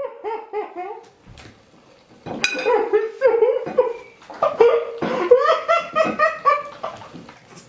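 People laughing hard in repeated bursts of pulsing laughter, with a sharp click a little over two seconds in.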